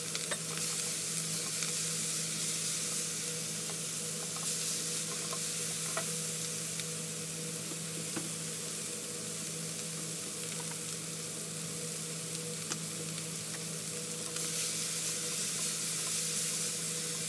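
Diced tomato, bacon and onion sizzling in a hot oiled frying pan on medium-high heat, the tomato juice just hitting the oil, while a spatula stirs them with light scrapes and taps against the pan. A steady low hum runs underneath.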